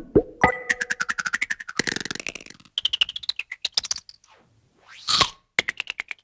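A quick string of cartoon sound effects: fast rattling clicks with short tones, a rising whistle-like glide, a swoop that falls and then rises, a short loud burst of noise about five seconds in, and another run of rapid clicks at the end.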